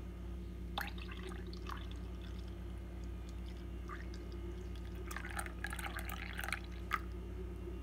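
Brewed coffee poured from a glass carafe into a porcelain cup of milk: a light splashing trickle, strongest for a second or so past the middle, with a couple of short sharp taps. A steady low hum sits underneath.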